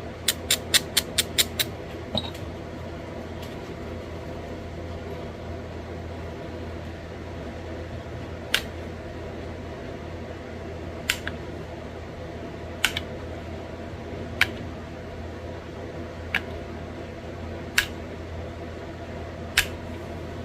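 Sharp clicks of small flakes snapping off the edge of a stone bird point as it is pressure-flaked. A quick run of about seven clicks comes at the start, then single clicks follow every one and a half to two seconds.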